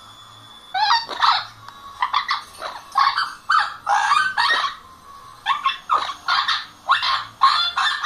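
Parrot squawking: a rapid string of loud, harsh squawks starting about a second in, with a brief lull around the middle.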